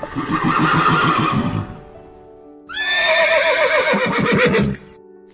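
Two long animal calls, the second falling in pitch, over steady background music.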